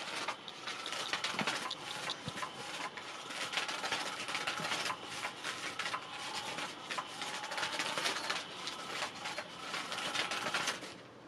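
Catch Me If You Can 2 electric cat toy running: its motor whirs while the wand sweeps and scrapes beneath the fabric cover, a fast, uneven rattling and rustling. It cuts off near the end.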